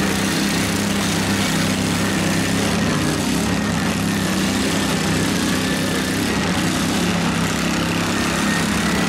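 Several small garden tractor and riding lawnmower engines running together as the machines drive around, a steady, dense engine sound with no sharp crashes.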